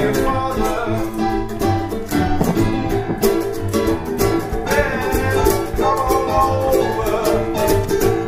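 Music: a guitar-led song with a steady beat.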